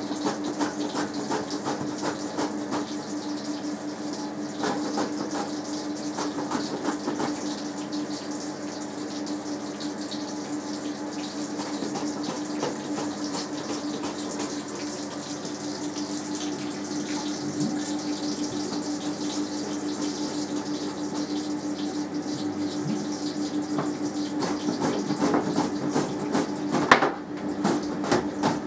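A steady hum with a watery rushing noise, over which come small clicks and knocks of a bell pepper being handled and pressed on a plastic vegetable slicer, with one sharper knock near the end.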